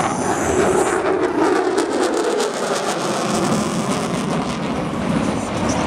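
F-22 Raptor's twin Pratt & Whitney F119 turbofan engines heard from the ground as the jet turns overhead: loud, steady jet noise with a crackle running through it.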